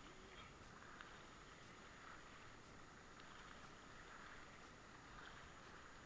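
Faint, muffled rushing of a whitewater river's current, with a few light ticks.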